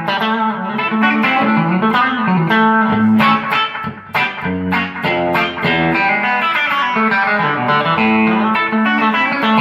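Stratocaster-style electric guitar with Jobe Tone pickups, played clean on its bridge pickup through a Fender amp: a run of picked notes and chords ringing out.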